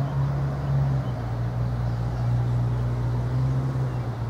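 Intermodal freight train's cars rolling along the rails with a steady low rumble.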